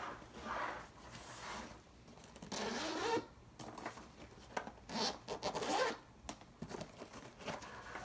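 Zipper on a laptop backpack's padded compartment being pulled open, running around the curved edge in several pulls with short pauses between them.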